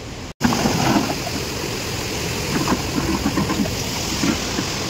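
Steady rush of a fast-flowing, swollen river, with faint voices of people in the background.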